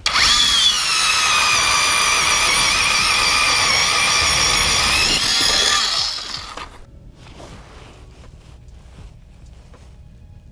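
A 24-volt lithium battery electric ice auger drilling through lake ice: a loud, steady motor whine for about six seconds that winds down and stops.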